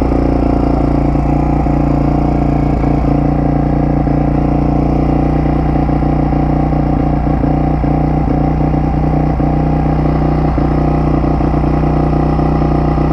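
A 2003 Honda CRF450's single-cylinder four-stroke engine idling steadily, at an even pitch with no revving.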